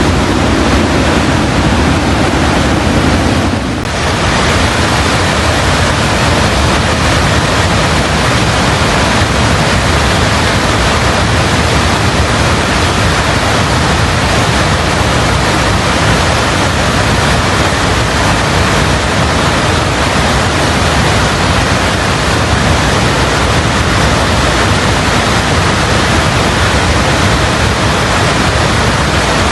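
Loud, steady rush of a mountain river in spate, swollen by a cloudburst, with a brief dip about four seconds in.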